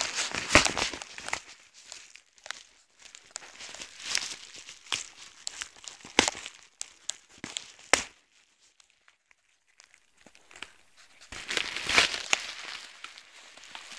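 Schnauzer tearing and crinkling paper post: irregular bursts of crinkling and ripping, with a pause of near silence a little past halfway and a busier flurry near the end.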